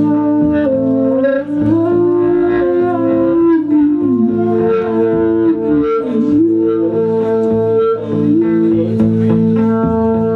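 Electric guitar playing long sustained notes that bend and slide in pitch, over a steady low held drone.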